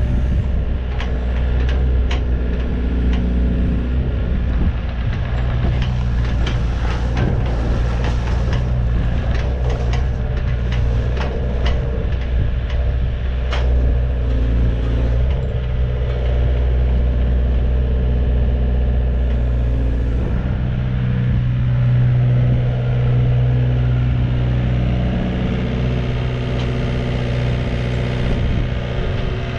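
Volvo ECR88 midi excavator's diesel engine running steadily while the boom, arm and upper structure are worked, with scattered sharp clicks and knocks through the first half. The low engine hum grows stronger for a few seconds about two-thirds through.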